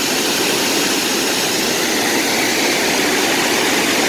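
A waterfall's falling water rushing steadily and loudly.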